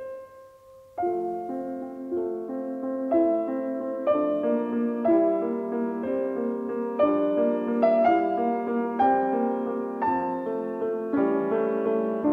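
Slow, gentle piano music: a single held note, then from about a second in, chords struck about once a second.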